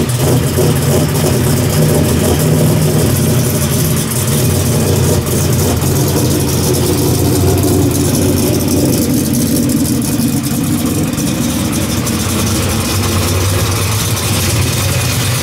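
A classic drag car's engine idling steadily through its exhaust, loud and deep.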